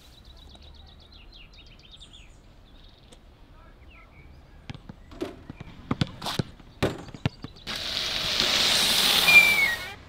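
Faint bird chirps, then a basketball dribbled on an outdoor court: about six sharp bounces. Near the end a loud rushing noise comes in, with a short high squeak just before it stops.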